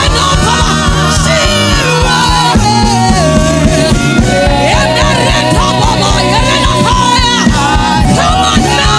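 Band music with singing: a lead voice gliding over a repeating bass line and drums.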